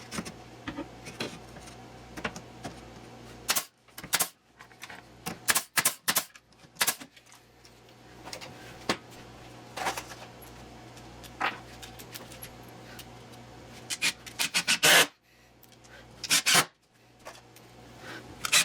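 Irregular clicks, knocks and rubbing from fitting a wooden filler board and drawer-slide hardware into a kitchen cabinet, over a steady low hum.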